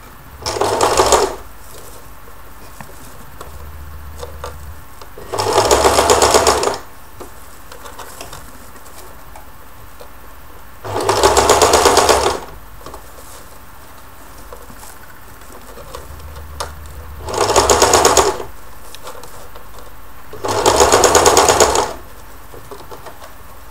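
Electric domestic sewing machine stitching a seam through organza in five short runs of rapid, even needle strokes, each lasting one to two seconds, with pauses between them.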